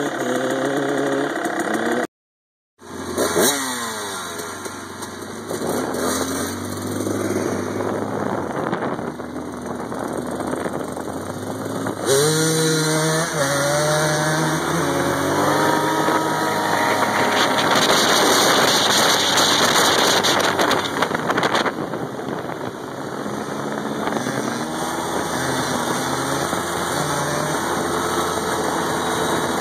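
Small dirt bike engine revving up and down while ridden, its pitch rising and stepping with throttle and gear changes. The sound cuts out briefly about two seconds in.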